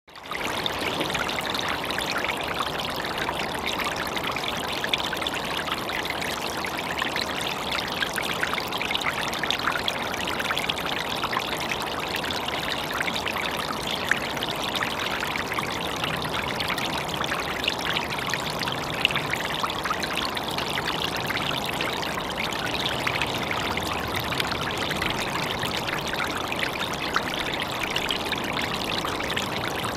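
Small, partly frozen stream running under and between ice and snow, a steady trickling flow with many small splashes, recorded through a Rode VideoMic Pro shotgun microphone.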